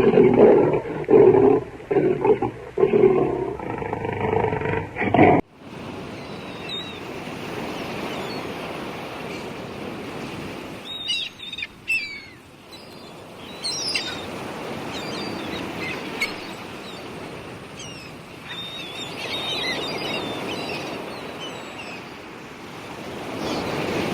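An animal gives loud, repeated deep growls, which the tagger files with roaring big cats. They stop abruptly about five seconds in. After that, scattered short bird chirps sound over a steady hiss of outdoor ambience.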